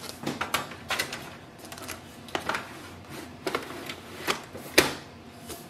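A stack of copy paper rustling and tapping as it is set into the plastic paper tray of an HP LaserJet Pro MFP 3101fdw laser printer. It comes as a scatter of irregular light clicks and knocks, with one sharper knock near the end.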